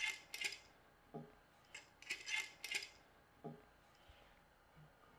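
Faint metallic clicks and clinks as a metal bar clamp is picked up and handled, with a couple of light knocks. The clinks come in small clusters over the first three seconds, with one more knock a little later.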